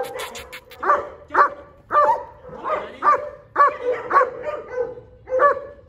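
German Shepherd barking over and over, about two barks a second, with a steady whining tone between the barks.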